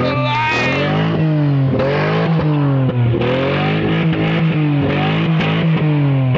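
Car engine held at wide-open throttle against its rev limiter, running at a steady high pitch that wavers up and down repeatedly as the limiter cuts in.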